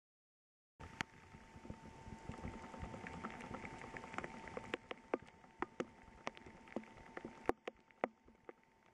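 Rain falling during a thunderstorm, a steady hiss with frequent sharp ticks of single drops landing close by. It starts abruptly about a second in and thins somewhat near the end.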